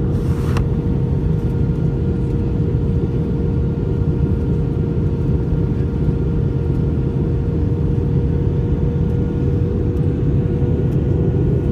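Airbus A320-232 cabin noise during the descent, heard from a window seat: a steady rush of airflow with the drone of its IAE V2500 engines and a steady hum tone. A brief rustle right at the start.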